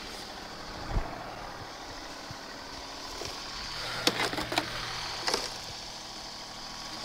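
John Deere compact tractor's diesel engine idling steadily while a plastic shovel scrapes up frozen manure and dirt and tosses it into the steel loader bucket. A knock comes about a second in, and a cluster of clattering hits comes around four seconds in and again a second later.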